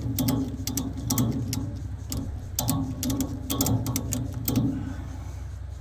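Ratchet strap being ratcheted up, its ratchet giving short runs of sharp clicks with each stroke of the handle, about five strokes, over a steady low hum.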